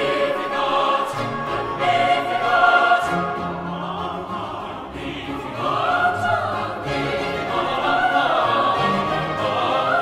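Background music: slow classical choral singing with long held notes.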